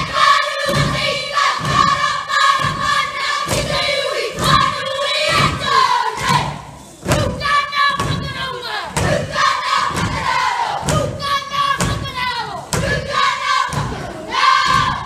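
A group of children performing a haka: shouted chanting in unison over rhythmic stamping and body slaps, about two beats a second.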